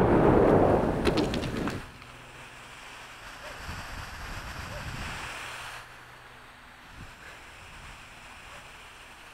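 Wind buffeting the helmet-mounted camera's microphone for the first two seconds, with a few clicks, then dropping away to a faint steady rush of churning water below the dam.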